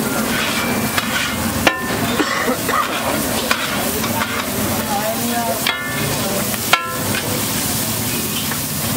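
A flat metal spatula scraping and stirring scrambled egg across a large flat griddle over a steady sizzle of frying. Twice, a sharp ringing clank as the spatula strikes the griddle.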